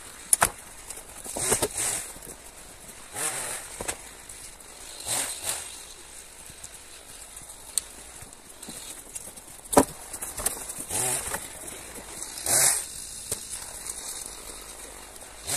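Irregular crunching and rustling with a few sharp cracks, the loudest about half a second in and again near ten seconds in, from dry deadwood branches being handled.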